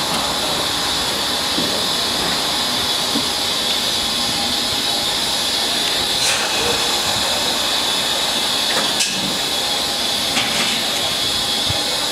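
Steady hiss of steam from a standing Bagnall-built Austerity 0-6-0 saddle tank steam locomotive, with a few faint clicks.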